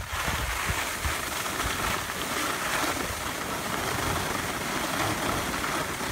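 Skis sliding over packed snow: a steady scraping hiss, with some wind rumbling on the microphone.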